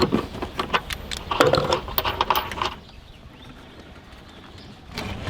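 Socket ratchet clicking in quick irregular runs as an 18mm bolt or nut is worked loose, stopping about three seconds in.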